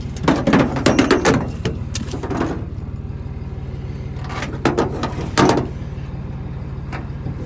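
Cummins diesel truck engine idling steadily, heard from inside the cab. Clusters of short clunks and rattles, louder than the engine, come in the first second and a half and again about five seconds in.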